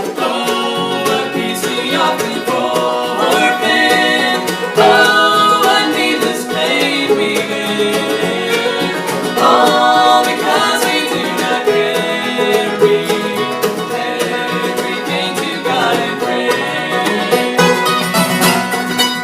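Bluegrass music with banjo and guitar picking, and a singing voice.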